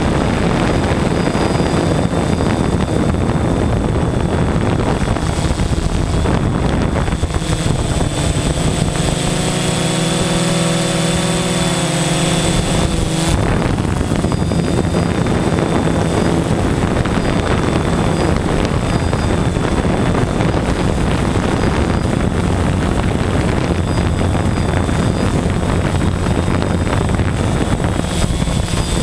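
Multicopter drone's electric motors and propellers whirring steadily, heard from the drone's own camera, as it comes down low over the grass. Its pitch shifts for several seconds about a third of the way in as it manoeuvres.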